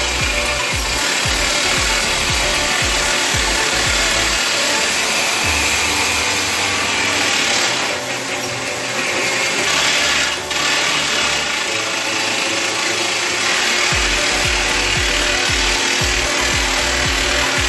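Resemin Raptor 55 long-hole drill rig's hydraulic rock drill drilling into rock with a 64 mm bit: a loud, steady grinding clatter over rapid low pounding. The low pounding fades for several seconds in the middle, then returns.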